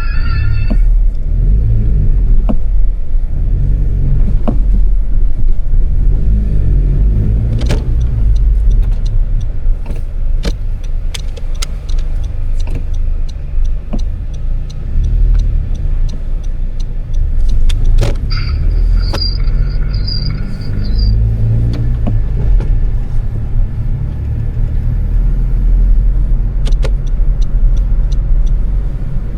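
2020 Honda Civic Si's 1.5-litre turbocharged four-cylinder engine running in city traffic, its low rumble rising and falling with the throttle. Scattered short clicks occur throughout, and a brief high-pitched warbling tone sounds a little past the middle.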